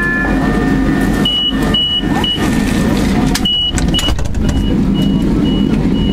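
A tram's door-closing warning beeper: short high beeps about two a second, starting about a second in and fainter in the second half, over the steady hum of the tram and the crowd at the stop.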